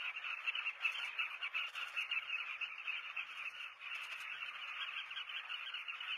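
A breeding colony of southern carmine bee-eaters calling all together: a dense, unbroken chorus of many short overlapping calls.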